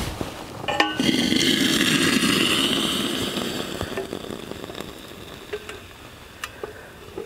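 A metal clink as the hot, blackened charcoal-making tin is handled on its wire hook, then a hiss that fades away over several seconds, with a few light ticks afterwards.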